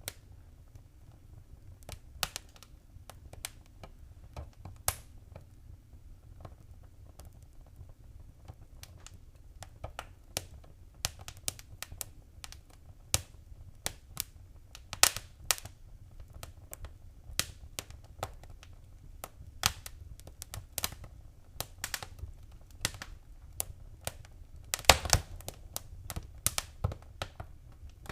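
Wood fire crackling in a fireplace: irregular sharp pops and snaps over a low steady rumble. The pops are sparse at first and come more often after about ten seconds, with a cluster of louder pops near the end.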